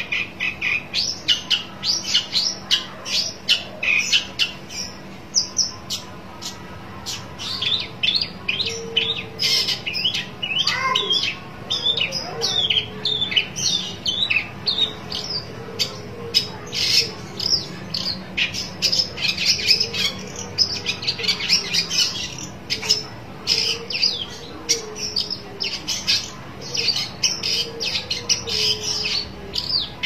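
Long-tailed shrike (pentet) chattering: a dense, continuous stream of short, sharp, high notes, the challenge calling of a bird seeking a rival.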